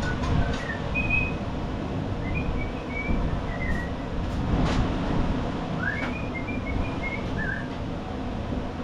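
Short, high whistled notes that shift in pitch, coming in small scattered groups over a steady low background noise, with a few faint clicks.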